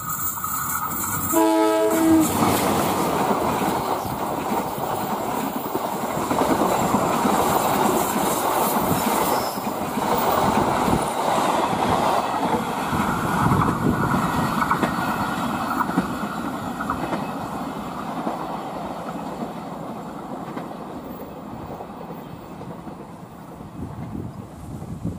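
Train horn giving a short blast about a second and a half in, then the train running past at speed with rumbling wheels and clickety-clack on the rails, fading away over the last few seconds.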